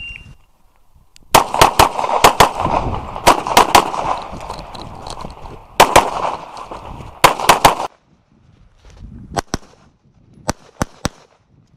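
A shot-timer start beep, a brief steady tone, then a rapid string of pistol shots fired mostly in quick pairs and triples for about six seconds, followed by a few fainter shots near the end.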